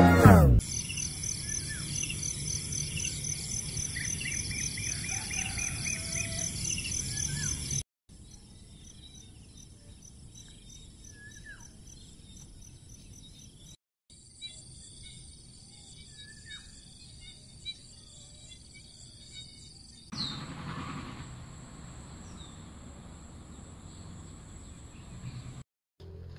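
Outdoor nature ambience: insects trilling steadily in high, evenly pulsing tones with scattered short bird chirps. The sound changes abruptly several times where short clips are cut together.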